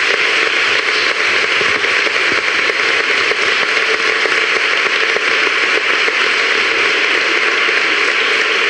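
A large audience applauding: many hands clapping at once in a steady, even clatter that holds at the same level throughout.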